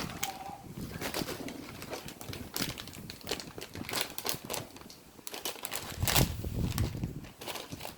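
Irregular crinkling and crackling of crunchy corn snacks and their plastic packaging being handled, with a heavier, deeper thud about six seconds in.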